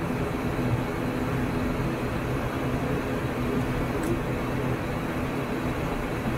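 ATR 72-600 turboprop engines and propellers running at low taxi power, heard inside the cockpit as a steady low hum with a few steady tones.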